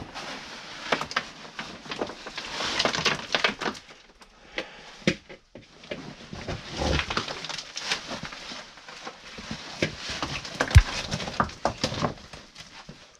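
A caver crawling through a tight rock squeeze: the oversuit scraping and rustling against the rock, knees and boots knocking on stone and loose rubble shifting, with effortful breathing. The knocks are irregular and frequent, with one louder knock near the end.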